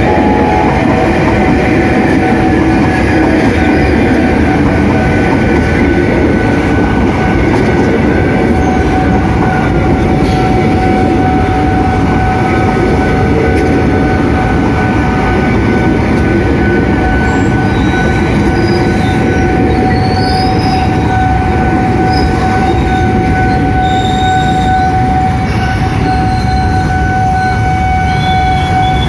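Electric commuter train passing at close range, its wheels running over the rails with a steady high-pitched squeal that holds all the way through.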